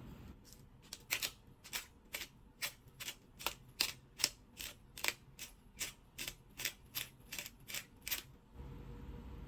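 A quick run of about twenty sharp clicks, roughly three a second, stopping about a second before the end.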